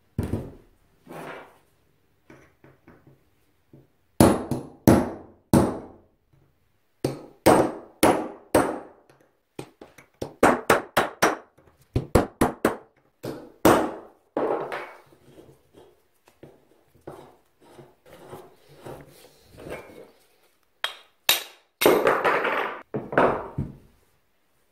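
Sharp metal knocks and taps as a rusty 1930s Lake & Elliot two-stage screw jack is worked apart on a wooden bench, some coming in quick runs of several strikes. A longer scraping rattle comes near the end.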